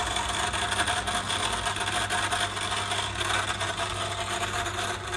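A 400 kg electric chain hoist running: a steady rasping, rattling noise over a low steady hum.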